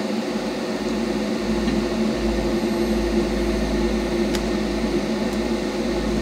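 Electric motor from a motion-simulator gaming chair humming steadily as it pulls on the T-Rex jaw's strings, with a deeper rumble that strengthens about two seconds in. This first try of the jaw mechanism does not work.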